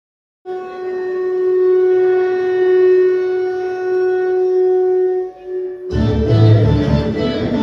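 Recorded music for a classical dance piece: it opens with one long, steady note from a wind instrument, held for about five seconds. About six seconds in, the fuller instrumental accompaniment with plucked strings comes in, louder and with a low beat.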